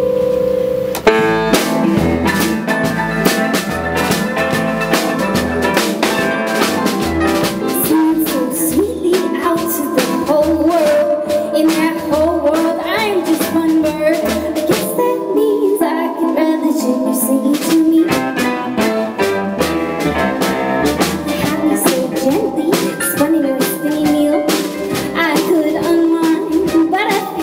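Live band playing: a held keyboard chord, then a loud drum hit about a second in as the drum kit comes in, and the full band plays on with a steady beat.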